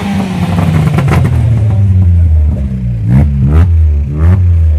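Peugeot 206 RC's 2.0-litre four-cylinder running at idle, with three quick throttle blips in the second half, each rising in pitch and dropping straight back.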